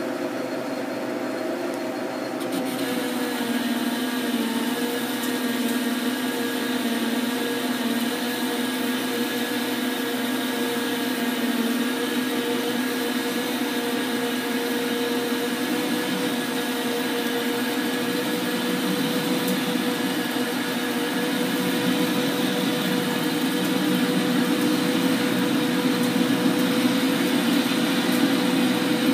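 Metal lathe running with its tool taking a facing cut on a machined hub, coolant flowing: a steady machine whine with the hiss of cutting, which picks up about two and a half seconds in.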